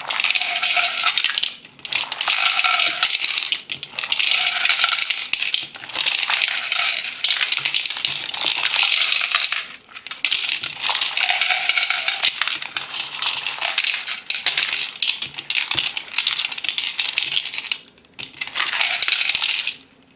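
Slime packed with plastic pearl beads being squeezed and worked, the beads clicking and rattling against each other in a dense crackle. It comes in repeated bursts of a second to a few seconds with short breaks between.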